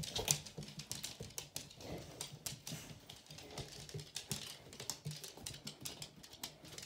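Irregular, quick clicking of a dog's claws on a hard laminate floor as it moves about.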